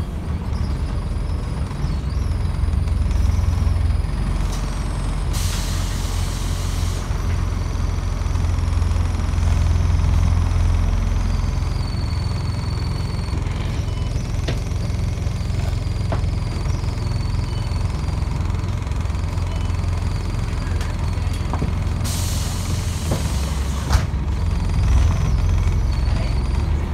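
Scania N270UD Omnidekka double-decker bus heard from the upper deck on the move: its five-cylinder diesel engine drones steadily. Two short bursts of compressed-air hiss from the bus's air system come about five seconds in and again about twenty-two seconds in.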